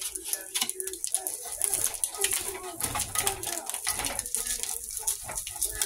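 Hot bacon grease crackling and sizzling in a cast iron skillet while a plastic spatula scrapes through the egg and bacon bits, with a rapid scatter of pops over a steady hiss. A low cooing, like a dove's, comes and goes behind it.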